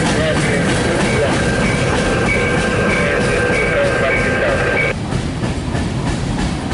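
Freight cars of a CSX local train rolling past on the rails: a steady loud rumble with a thin, steady high-pitched squeal over it. About five seconds in, the squeal and the brighter part of the noise stop suddenly, leaving a quieter rumble as the train moves off.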